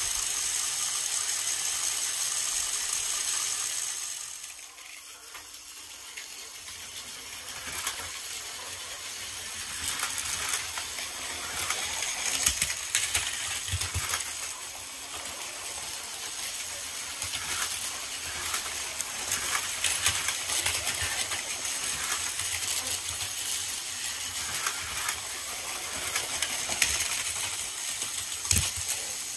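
Several battery-powered Plarail toy trains running on plastic track: motors whirring and wheels and cars clattering, with many sharp clicks and knocks. A steady hiss in the first four seconds dips, and the clatter grows busier from about seven seconds in.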